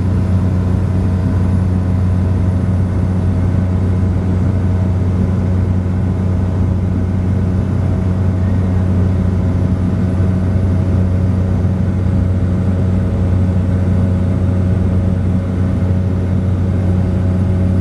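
Small charter propeller plane's engine and propeller running at a steady cruise in flight, a constant low drone heard from inside the cabin.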